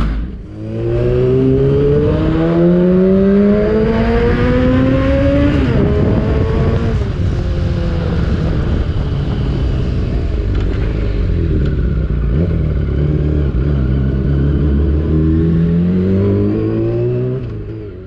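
Yamaha R6 600cc inline-four sport bike engine pulling hard up through the revs for several seconds, dropping back, running steadily, then climbing again near the end. The silencer pipe has been taken off, which makes it loud.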